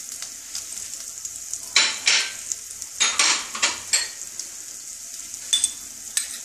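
Cumin, coriander seeds and bay leaves sizzling in a little hot oil in a nonstick pan as the whole spices are tempered: a steady hiss with a few sharp crackles and pops.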